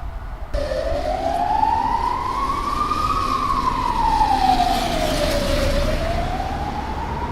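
Loud siren-like wailing tone, rising slowly in pitch for about two and a half seconds, falling for about as long, then rising again, over a low steady background rumble. The background changes abruptly about half a second in, where one clip cuts to another.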